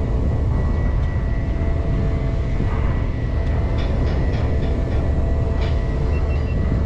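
An engine running steadily: a heavy low rumble with a constant hum over it, and a few faint ticks about four seconds in.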